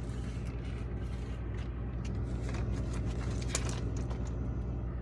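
Items being handled and moved about in a refrigerator: scattered small clicks, knocks and scrapes over a steady low hum.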